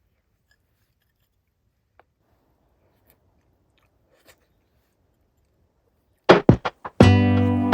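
Near silence with a few faint clicks. Near the end, a quick run of sharp percussive hits brings in background guitar music.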